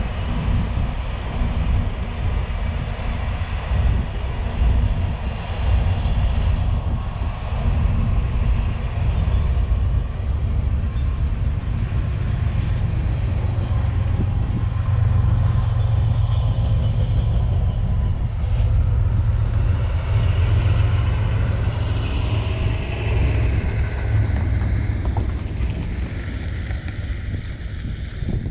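Freight train of loaded gondola cars rolling along the track: a steady, loud low rumble of wheels and cars with a clattering haze over it.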